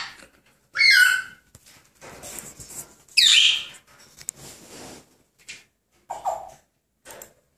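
African grey parrots calling: loud squawks that fall in pitch, one about a second in, one about three seconds in and a shorter, lower one near six seconds, with softer chatter between them.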